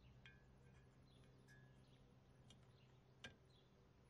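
Near silence: faint outdoor background hum with a few small, sharp clicks, the clearest about three seconds in.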